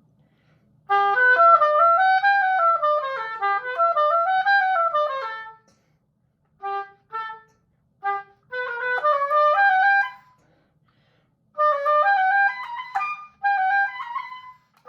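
Oboe playing a practice passage: quick runs of notes up and down in three phrases, with a few short detached notes between the first and second phrase and short pauses between.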